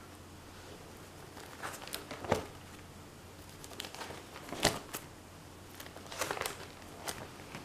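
Clear plastic sheet protectors in a ring binder being turned over, crinkling and rustling with sharp clicks, three times.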